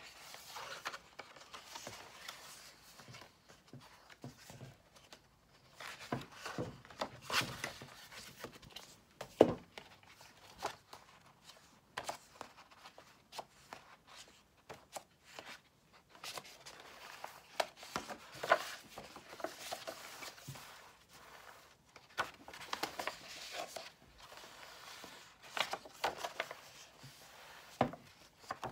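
Pages of heavy-paper sketchbooks being turned and handled: irregular rustles and flaps of paper with a few short, sharper knocks.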